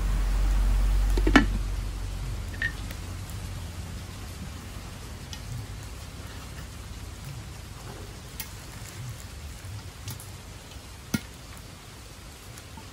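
A lid is set down on a wok with a sharp knock about a second in. Then comes a steady hiss of rain and popcorn kernels heating in oil under the lid, with a few scattered sharp ticks.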